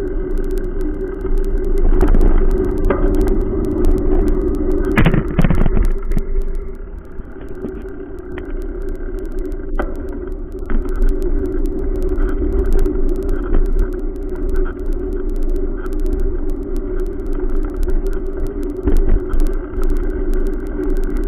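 Road and wind noise from a camera riding on a bicycle along a concrete sidewalk: a steady hum with low rumble, and the mount rattling and knocking as the bike goes over bumps about 2 seconds in and again around 5 to 6 seconds in. Cars run by on the road beside it.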